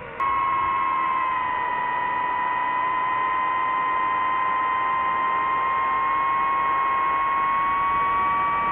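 DJI FPV quadcopter's motors and propellers whining at high throttle as it climbs, starting abruptly just after the start. The whine holds a steady pitch and rises slightly near the end.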